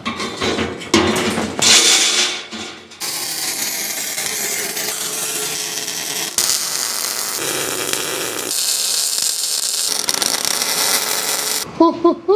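A sheet of expanded-metal grate clattering and knocking as it is set into a steel frame, then an arc welder running with a steady hiss for about eight seconds as the grate is welded on, ending suddenly near the end.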